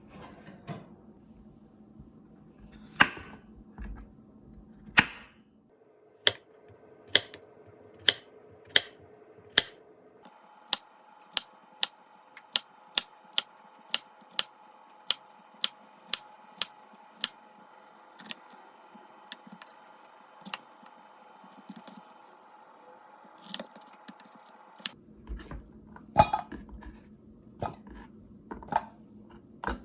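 A series of sharp knocks: a few spaced ones, then a steady run of about two a second for several seconds, then scattered again. A faint steady hum runs under the middle part.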